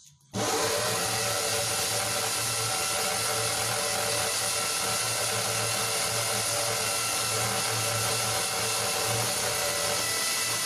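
Corded electric drill starting about a third of a second in and then running steadily as its bit bores into a wall.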